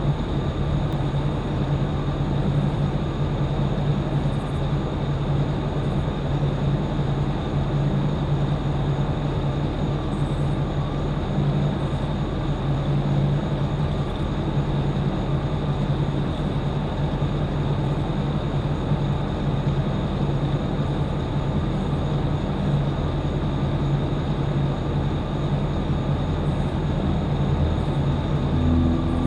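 Engine idling steadily, a constant low drone with no change in speed, running to charge a dead car battery before a start attempt.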